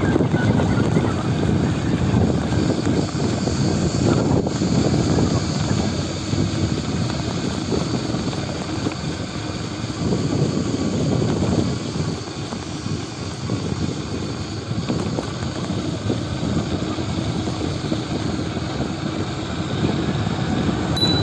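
Wind rushing and buffeting over the microphone of a camera carried on a moving bicycle, a steady, rumbling noise that eases a little in the middle and picks up again near the end.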